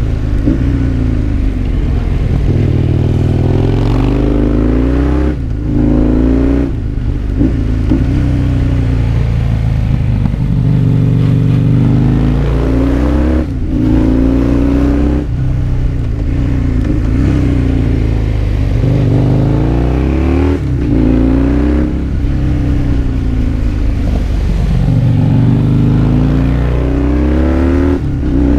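Husqvarna Nuda 900 parallel-twin engine under way, revving up again and again with its pitch rising, broken by brief dips at the gear changes and throttle lifts, about five times. A low rumble of wind and road lies under it.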